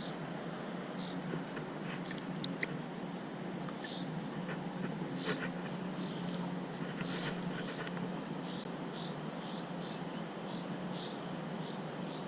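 Short high chirps from a small animal, scattered at first and then repeating about twice a second, over a steady low background noise.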